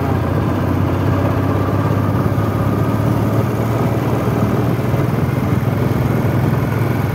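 Vehicle engine running steadily while driving on a hill road, a continuous low hum with road noise and no sharp events.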